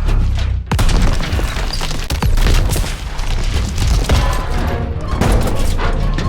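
Large train passing close: a heavy low rumble with many irregular loud bangs and clatter of wheels and cars.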